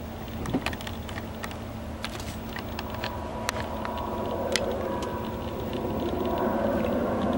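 A jet airliner's engines growing louder as it approaches: a rushing noise with a steady whine swells from about halfway through. Scattered sharp clicks sound throughout.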